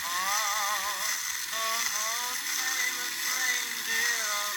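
A Christmas song played from a hand-spun 78 rpm record through a sewing needle and paper cone. It is thin and not too clear, with a wavering melody over heavy surface hiss.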